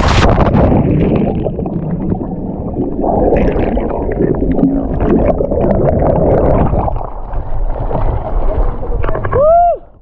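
Water noise from a jump into the river pool: a splash at the start, then loud rumbling and gurgling as the GoPro goes under water. A short, loud tone that rises and falls comes near the end.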